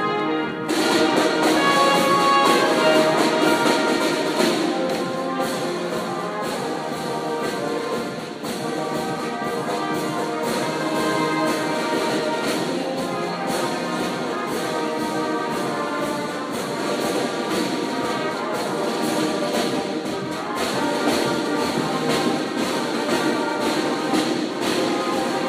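Youth marching band playing: brass instruments with snare and bass drums keeping a steady beat. The full band comes in louder about a second in.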